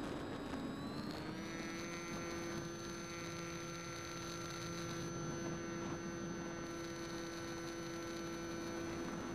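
Electric motor of a Bixler RC foam plane whining steadily over a rush of air noise, heard from the onboard camera; its pitch rises about a second in as the motor speeds up, then holds steady.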